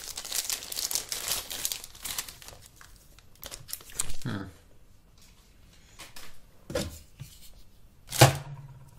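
Plastic packaging crinkling and rustling as it is unwrapped, dense for the first two seconds or so. After that come a few scattered handling clicks and knocks, the loudest one near the end.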